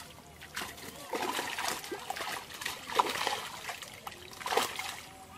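Water splashing and streaming off a bamboo-framed square lift net as it is hauled up out of shallow pond water, with sharper splashes about three seconds and four and a half seconds in.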